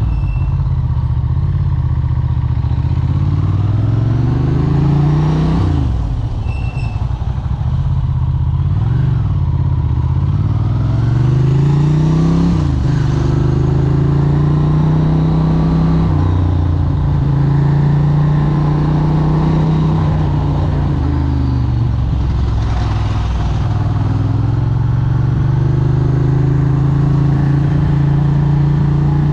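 Capello SP78 moped engine running under way, its pitch climbing steadily as it accelerates, dropping back sharply three times and climbing again.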